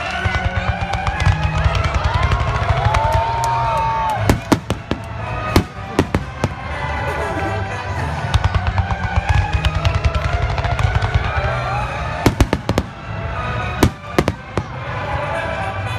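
Aerial fireworks bursting in a dense finale barrage, with continuous crackling and several heavy bangs, the loudest about four seconds in and a couple more near the end. Music plays underneath.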